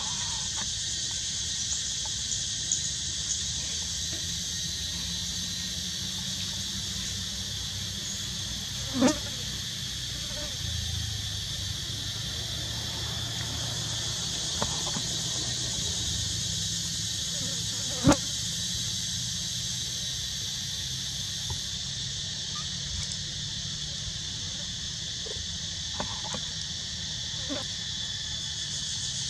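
Steady high-pitched chorus of insects, a dense even drone, with two short sharp sounds standing out partway through.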